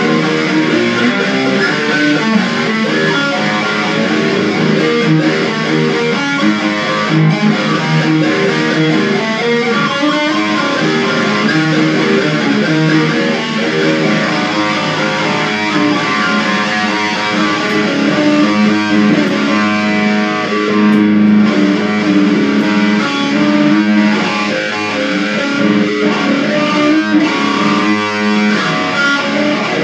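Ibanez electric guitar played through a Roland Cube practice amplifier: continuous riffing with no break.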